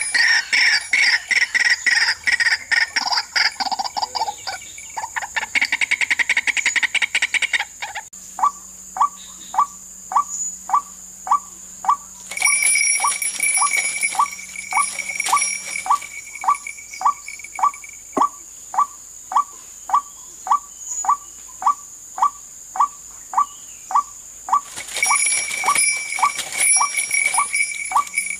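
White-breasted waterhen calls: a dense run of harsh croaking for the first several seconds, then a steady series of short 'wak' notes, about two a second. A steady high whine runs underneath, with two bursts of high buzzing, the second near the end.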